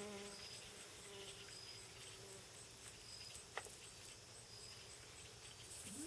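Faint insects chirping outdoors, short high notes repeating about every second and a half. A low buzz fades out at the start, and there is a single click about three and a half seconds in.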